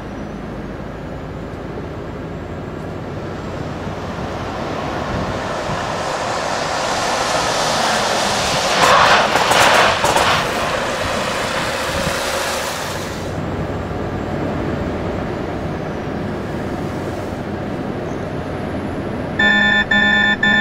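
Volvo FH truck and cars driving on a wet road: engine noise and tyre hiss build to a loud rush as the truck passes close, about nine seconds in, then die down. Near the end a rapid electronic beeping starts, the truck cab's collision-warning alarm.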